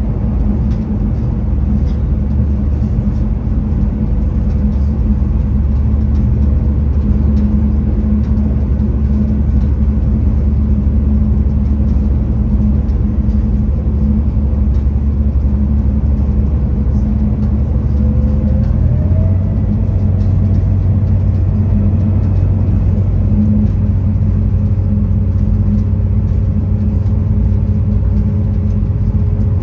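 V/Line VLocity diesel railcar running at speed, heard inside the carriage: a steady rumble of the underfloor diesel engine and wheels on the track. About two-thirds of the way through, the engine's low drone steps up to a slightly higher pitch.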